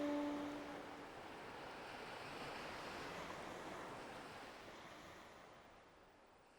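Soft wash of ocean surf, swelling once and then fading out. The last held musical tones die away in the first second.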